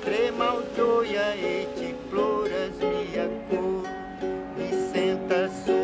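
Ukulele being played, notes picked and strummed in a steady tune, with a voice singing along over it.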